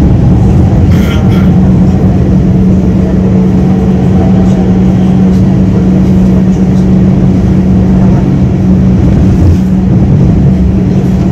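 Madrid Metro Line 10 train running through a tunnel, heard from inside the car: a loud, steady rumble with a constant low hum.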